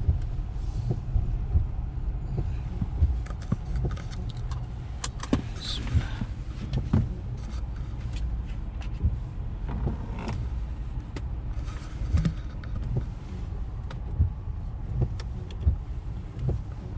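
Inside a parked car with the engine idling: a steady low hum, with scattered clicks and knocks and a short whir about six seconds in.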